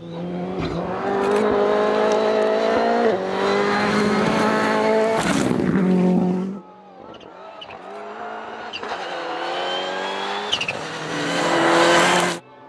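Rally cars on a gravel stage, engines at high revs with gear changes and loose gravel under the tyres. Two passes are edited back to back. The first cuts off suddenly about six and a half seconds in; the second grows louder and cuts off just before the end.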